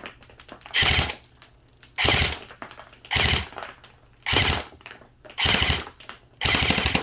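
Battery-powered airsoft M4 rifle firing on full auto, running on a 9.6 V 1600 mAh NiMH battery. It fires six short bursts of about half a second each, about a second apart.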